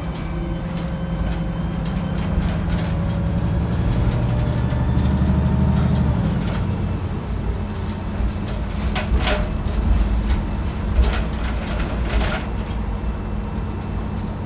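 Wright Pulsar 2 single-decker bus heard from inside the cabin while moving. The diesel engine pulls under load, its note building for about six seconds and then falling away. Several sharp rattles from the bodywork follow in the second half.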